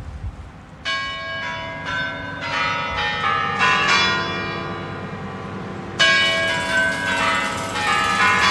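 The Kremlin chimes of the Spasskaya Tower ringing a run of bell strokes that overlap and ring on. They die away, and a second phrase begins with a strong stroke about six seconds in.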